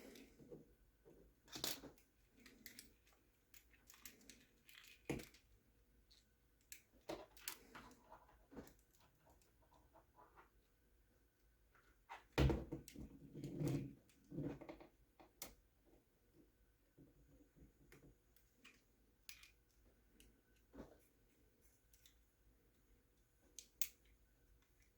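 Small plastic RC truck parts and tools being handled: scattered light clicks and rustles, with a louder stretch of handling about halfway through.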